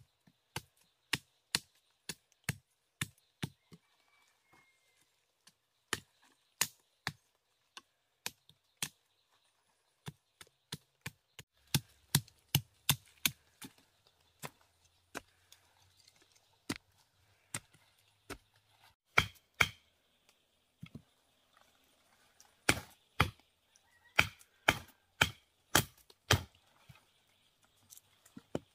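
A machete chopping into soil and wood, and a wooden stick pounding a sharpened bamboo stake into the ground: a long series of sharp knocks, often in runs of about two a second, loudest in the second half.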